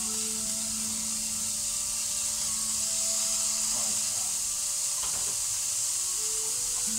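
Raw 20%-fat beef mince sizzling steadily in a hot frying pan, just put in to brown. A couple of faint clicks near the middle.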